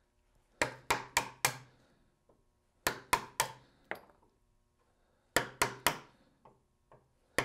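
A hammer striking a wide chisel in quick runs of three or four blows, three runs in all, chopping out the waste wood of a hand-cut rabbet along the weak grain.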